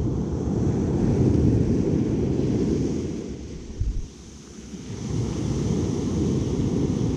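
Wind buffeting the microphone: a loud, low rumble that swells, drops away briefly about four seconds in, then builds again.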